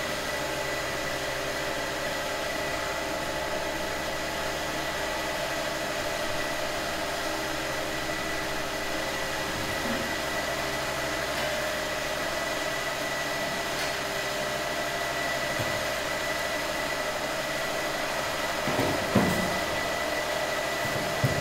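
Steady machine hum with a constant high whine running underneath. Near the end come a couple of short knocks as a floor tile is set into its mortar bed.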